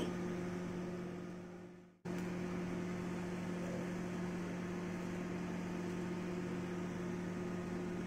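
Steady low electrical hum with a fainter higher tone above it. It fades out to silence about two seconds in, then cuts back in abruptly and holds steady.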